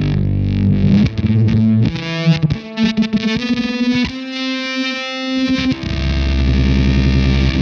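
Electric guitar with humbucker pickups played through a Fender Shields Blender fuzz pedal: distorted chords and single notes, with one long sustained note in the middle and a low, heavy chord ringing near the end.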